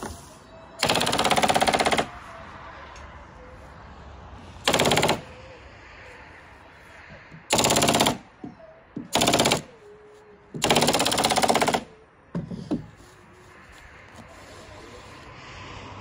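Nail gun fired in rapid-fire bump mode ("machine gun"), driving fasteners in five quick bursts of shots, each half a second to just over a second long.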